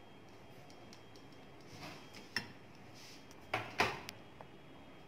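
Wooden spatula scraping pav bhaji onto a ceramic plate, with light knocks of spatula and plate against the dishes: a soft scrape, a sharp click, then two louder knocks about three and a half seconds in.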